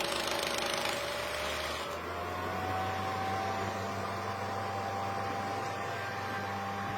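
1941 Revere Model 80 8mm film projector running, its motor and cooling fan giving a steady whine and rush of air. About two seconds in the hissy noise drops away and the whine steps up a little in pitch, then runs on steadily.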